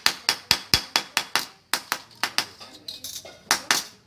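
Rapid hammer taps on a small piece of copper sheet, about four or five sharp strikes a second, with a short break near the middle and two harder strikes near the end.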